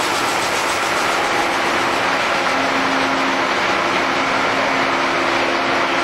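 Bullard Dyn-Au-Tape IV vertical turret lathe running under power, its table turning with coolant spraying: a steady machine hum with an even hiss.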